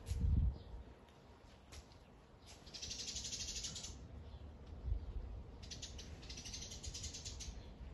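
A cat crunching dry kibble from a plastic bowl: two runs of rapid crunching, the first about two and a half seconds in, the second from about six seconds in to near the end. A brief low thump comes at the very start.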